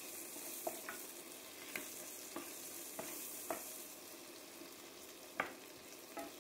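Chopped onion sizzling gently in oil in an enamel pot, being sautéed soft while a wooden spoon stirs it, with a few light knocks of the spoon against the pot.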